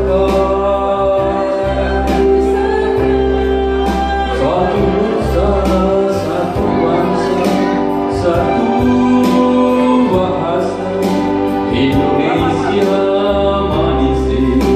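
Live song performance: a man and a woman singing into microphones over an amplified band accompaniment of sustained chords.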